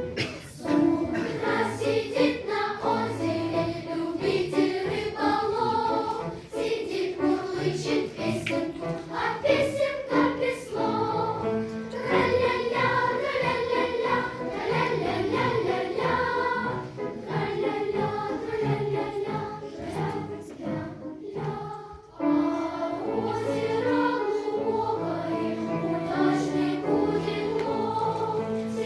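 A choir singing a song, with a brief pause about 22 seconds in before the singing resumes.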